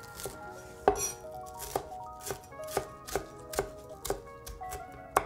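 Chinese cleaver dicing soaked dried shrimp: irregular knife strikes, about two or three a second, over soft background music.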